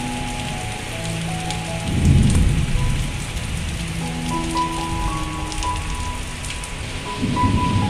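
Heavy rain pouring down steadily, with two louder low rumbles, about two seconds in and near the end. Background music with held notes plays over it.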